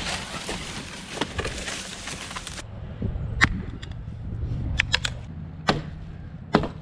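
A Fiskars axe chopping into a fallen branch: a few sharp knocks of the blade striking wood, starting about three seconds in, with a quick run of three strikes near the middle. Before the strikes there is a rustling hiss.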